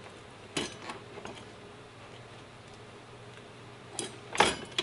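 A few sharp metal clicks and knocks from the motorcycle's front wheel hub and axle parts being fitted by hand: one click about half a second in, then two near the end, the second a louder clack.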